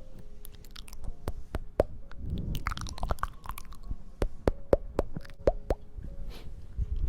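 Close-miked ASMR trigger sounds: a run of sharp crackly clicks and soft rubbing swells, over faint background music.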